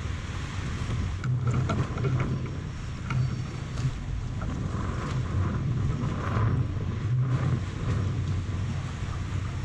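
Strong wind buffeting the microphone and choppy harbour water slapping against a small fishing boat, over a steady low hum, with a few short knocks and splashes.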